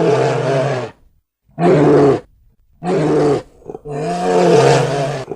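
A large animal roaring in four separate calls, each lasting about half a second to a second and a half, with short silent gaps between them.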